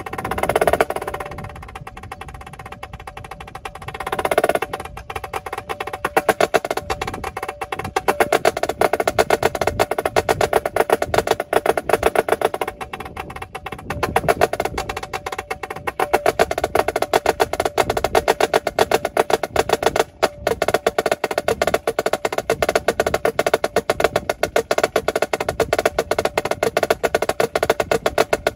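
Yamaha marching snare drum played solo with sticks: two rolls that swell in loudness in the first few seconds, then a long run of fast, dense strokes, with a brief break about twenty seconds in.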